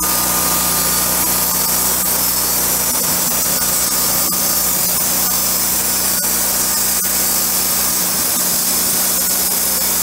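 Portable band sawmill running steadily, its engine-driven band blade cutting lengthwise through a log as the saw head is pushed along it.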